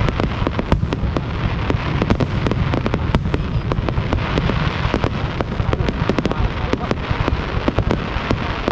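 Fireworks display: a dense, continuous barrage of sharp bangs and pops, many a second, over a steady low rumble.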